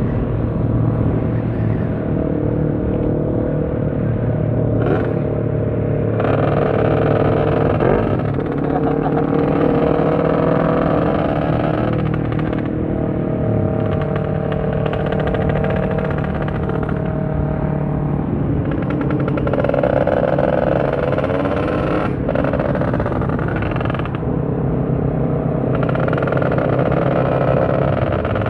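Motorcycle engine running on the move, its pitch rising and falling several times with throttle and gear changes.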